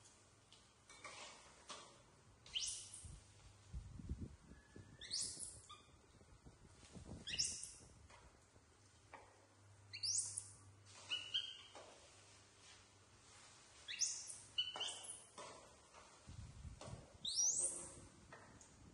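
Baby macaques giving short, high-pitched squeaking calls that sweep upward, one every second or two, with a few dull low thumps in between.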